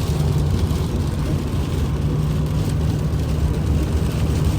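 Steady low rumble of a car driving on a snow-covered highway, heard from inside the cabin: engine and tyre noise.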